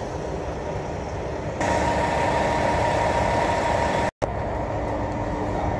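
Steady vehicle engine noise with a constant hum, growing louder about a second and a half in and cutting out for an instant about four seconds in.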